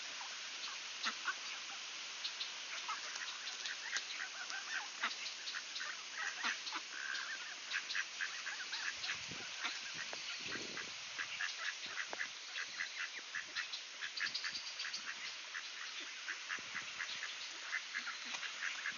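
Flock of mallard ducks calling, with many short quacks and soft chatter following one another close together.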